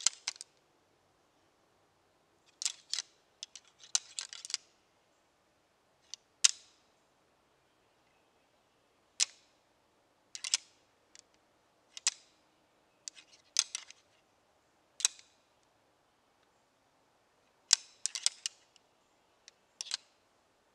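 A pair of deer antlers rattled and ticked together by hand: sharp clacks of tine on tine, in short clusters with pauses of a second or more between them, imitating bucks sparring to draw in a buck.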